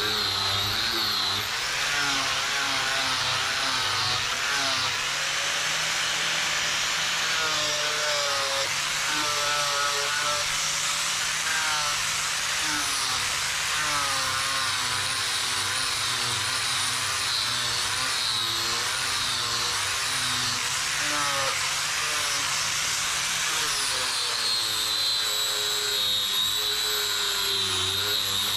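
Angle grinder with an abrasive disc grinding a steel knife blade, a steady harsh grinding hiss over the motor's whine. The high whine stands out more clearly at the start and again in the last few seconds, where the load on the disc lightens.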